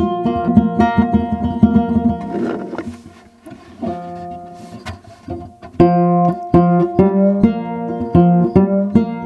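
Gourd banjo played in quick plucked notes, tuned in a lowered gCGCC open tuning. The playing drops quieter about two and a half seconds in, then picks up louder again about six seconds in.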